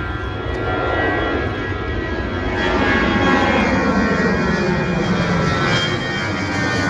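Airliner's engines roaring as it passes close by, growing louder through the first few seconds, with a whine that slides down in pitch as it goes past.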